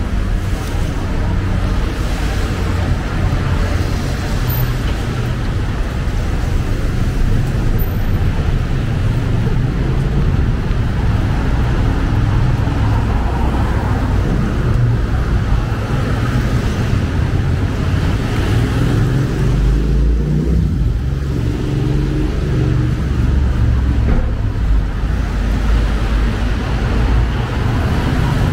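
Steady city street traffic on wet roads, a continuous low rumble of passing cars. Around twenty seconds in, one vehicle's pitched engine hum stands out.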